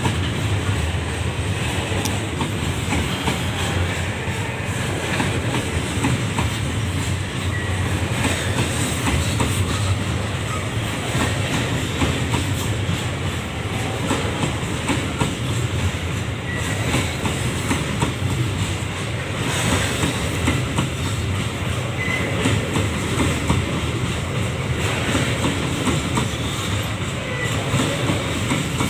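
Babaranjang coal train's wagons rolling on the rails, a steady rumble with the clatter of wheels over the track.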